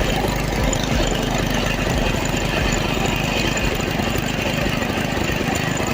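An engine idling steadily, with a fast even low pulsing.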